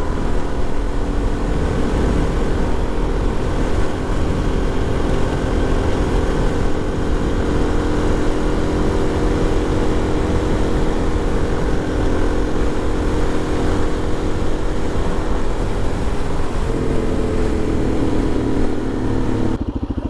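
Motorcycle engine running steadily at road speed, picked up by a helmet-mounted lavalier mic under heavy low wind rumble. The engine note steps up in pitch near the end.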